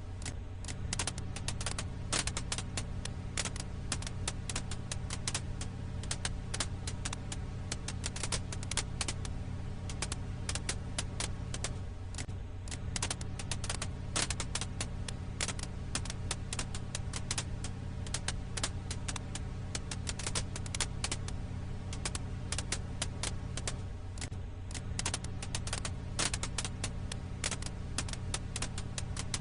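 Firewood crackle ambience: dense, irregular pops and snaps of a wood fire over a steady low hum. A brief dip in the hum comes back about every twelve seconds, as in a looped track.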